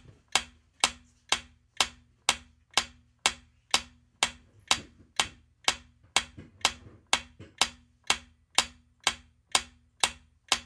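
Quiz countdown timer's ticking sound effect: short, sharp, clock-like ticks, evenly spaced at about two a second.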